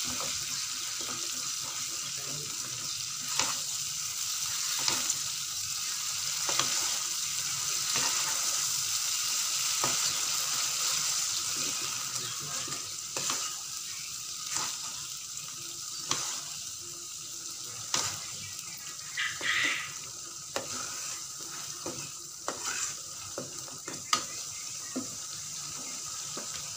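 Blended chili paste frying in oil in a metal wok, sizzling steadily, with a metal spatula knocking and scraping against the pan every second or two as it is stirred. The sizzle is a little quieter in the second half.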